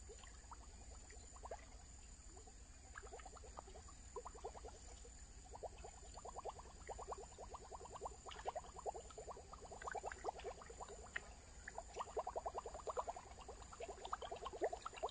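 Lure being reeled in on a baitcasting reel: soft, fast ticking that comes in spells from about three seconds in, with faint water sounds.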